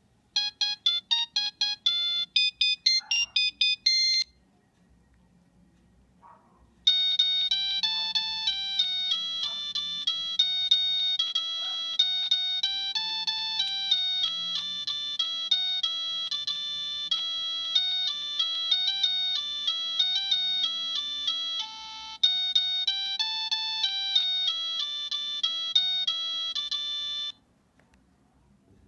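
Nokia 3586 mobile phone ringtones: a short run of fast staccato beeping notes for about four seconds, then, after a pause, a longer tune of quick, evenly paced notes for about twenty seconds that stops near the end.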